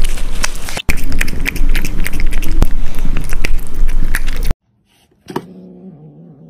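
Loud, crackly wet chewing and lip-smacking of a cat eating from a spoon, with dense clicks throughout, cutting off suddenly about four and a half seconds in. After a short silence and a click, a cat starts a low, drawn-out growling yowl.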